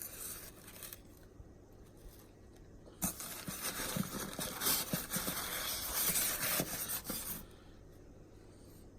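Rustling, scraping and crinkling of shipping packaging being handled and opened, loudest for about four seconds from roughly three seconds in, with scattered small clicks.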